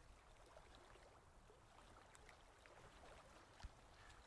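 Near silence: room tone, with one faint click near the end.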